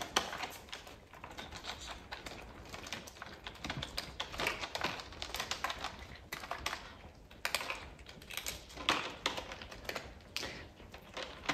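A cat eating dry cat food, with irregular light crunches and clicks.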